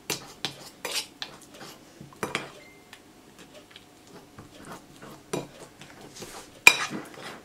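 Metal cutlery scraping and clinking against a bowl while mashing banana, in irregular taps and scrapes, with the loudest clink near the end.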